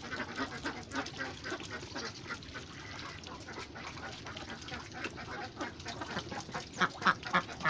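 Ducks quacking in a rapid run of short calls, louder near the end.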